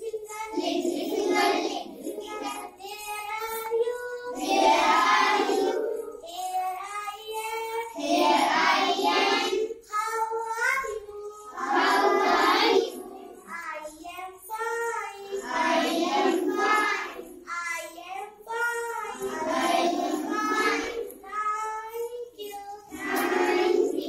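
A group of young children singing together in unison, phrase after phrase, with short breaks between lines every few seconds.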